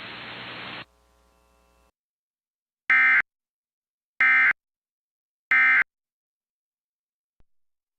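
Emergency Alert System end-of-message code: three short, loud bursts of shrill digital data tones, about a second apart. A steady hiss cuts off under a second in, before the bursts.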